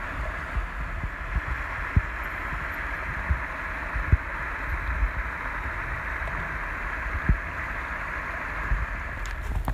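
Small rocky creek rushing steadily, with a few dull low thumps. Near the end, quick sharp clicks begin.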